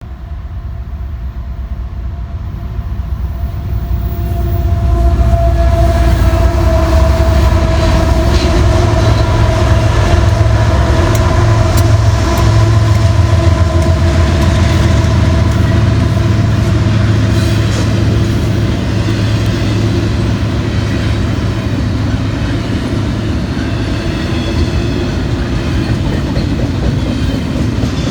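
Four GE diesel locomotives hauling a BNSF intermodal freight train pass by, the sound building over the first few seconds to a loud, steady engine drone. Wheels clatter over the rail joints as the train rolls through.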